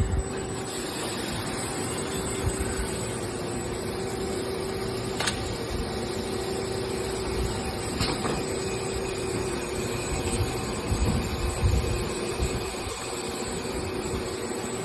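CNC machine tool running steadily with a hum, machining a planetary carrier, with a sharp click at the start and two light ticks about five and eight seconds in.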